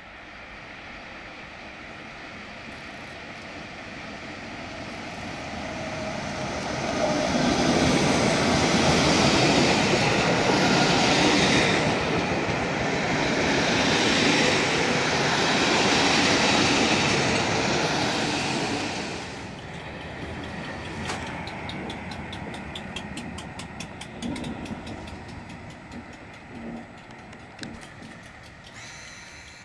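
A loco-hauled passenger train runs at speed close past a station platform. A rush of wheel and air noise builds to a loud peak lasting about twelve seconds, then falls to a quieter rumble with wheels clicking over rail joints.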